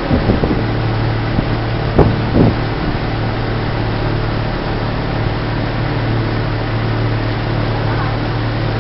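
Boat engine running steadily under way, a constant low hum with a rush of wind and water noise, and two brief knocks about two seconds in.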